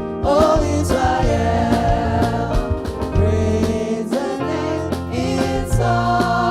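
Gospel-style worship music with singing over a steady bass and beat.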